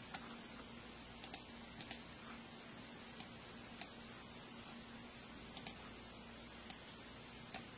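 Scattered computer mouse clicks and keyboard taps, about a dozen short clicks at irregular intervals, over a faint steady hum.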